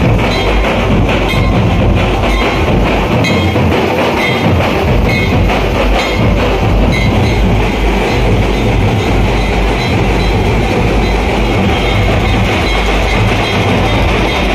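Loud, distorted festival music with a heavy drum beat.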